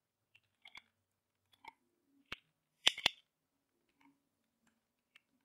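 Scattered keystrokes on a computer keyboard while code is typed, about six single clicks with the loudest, a quick double click, about three seconds in.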